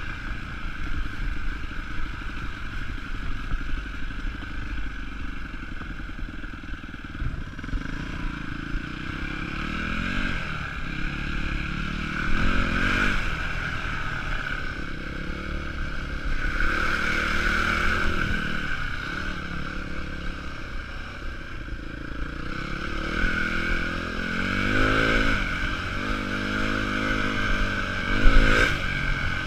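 Yamaha WR250F's single-cylinder four-stroke engine under way at low speed, revving up and dropping back several times as the throttle is worked.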